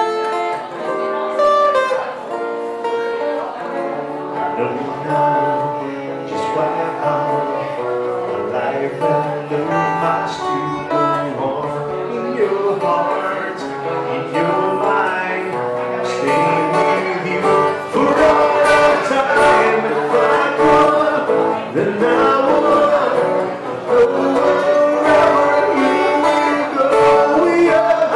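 Live acoustic music: a steel-string acoustic guitar picked and strummed, with a man singing into a microphone. The playing gets louder and busier about halfway through.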